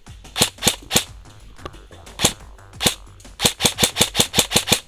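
Airsoft gun shots: three quick shots, two more spaced singly, then a fast string of about nine shots in a row.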